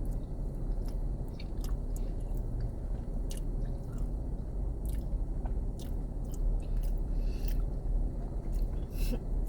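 A person chewing a large mouthful of creamy fettuccine Alfredo with chicken, close to the microphone, with wet mouth smacks and scattered clicks throughout.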